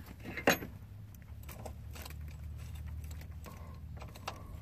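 Small irregular metal clinks and clicks from a 1/4-inch drive socket, swivel joint and extension being worked on a loosened nut, with one sharp clink about half a second in, over a low steady hum.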